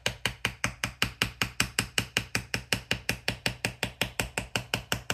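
Rapid, very even clicking, about seven clicks a second, from a fingertip rubbing back and forth over the label sticker on the plastic base of a Wyze Cam Outdoor camera.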